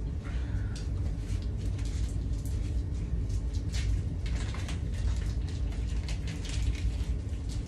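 Scattered rustles and light clicks of food packaging and utensils being handled at a kitchen counter, over a steady low hum.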